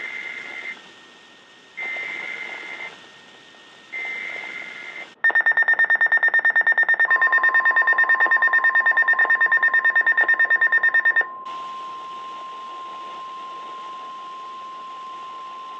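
NOAA Weather Radio alert signalling: three short raspy warbling bursts of SAME digital header data, each about a second long and a second apart. Then a loud alarm beeping rapidly for about six seconds. The steady 1050 Hz warning alarm tone starts partway through the beeping and holds on alone; this signalling marks the start of a new warning broadcast.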